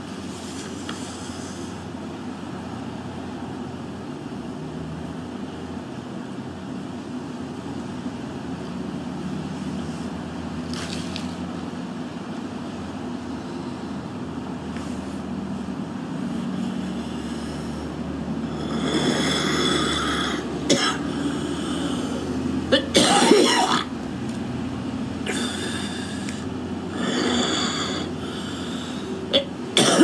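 A woman's harsh smoker's coughing, a run of loud coughs in the last third, after a long stretch of only a steady low hum.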